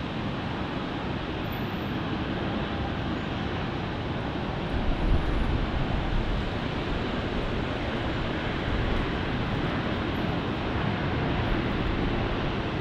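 Jet airliner's engines heard as a steady rushing noise that builds slightly, with a brief low buffet about five seconds in.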